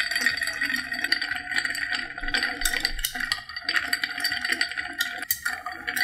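Ice cubes rattling and clinking against a cut-glass mixing glass as a bar spoon stirs a cocktail, a continuous run of quick clinks with a short break near the end.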